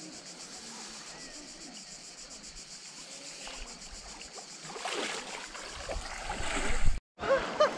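Insects buzzing with a steady fast pulse over soft river water. About five seconds in, splashing and sloshing grows louder as a person sits up and stands in shallow water, then cuts off abruptly, and a few voices follow.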